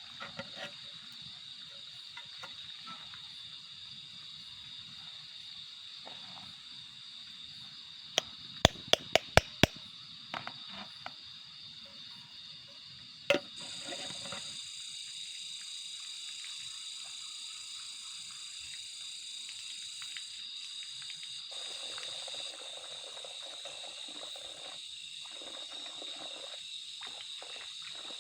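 Night insects chirring steadily at a high pitch. About eight seconds in comes a quick run of about six sharp clicks, and another click follows a few seconds later.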